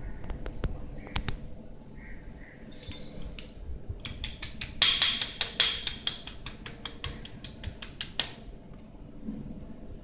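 A metal hand tool worked against the head of a hydraulic cable-lug crimper: a quick, even run of sharp metallic clicks with a ringing tone, about six a second, from about four seconds in to about eight seconds in. A few scattered handling clicks come before it.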